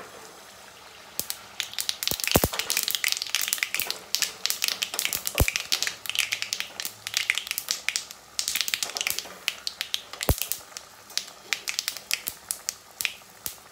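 Anarsa, a sesame-topped rice-flour dough patty, deep-frying in hot oil: dense crackling and popping that starts about a second in and carries on throughout, with three louder sharp clicks along the way.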